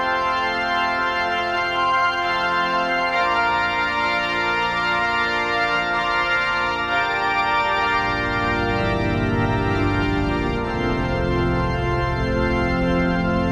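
Organ music playing slow, held chords that change every second or two, with the bass notes growing fuller about eight seconds in.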